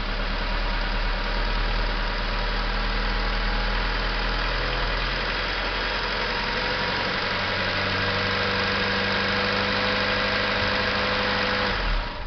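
Honda Civic LX four-cylinder engine idling just after a cold start, with a steady groaning whine from the power steering pump. The pump is starved of fluid because engine oil was put in the power steering reservoir and its sludge clogged the reservoir strainer. The engine shuts off near the end.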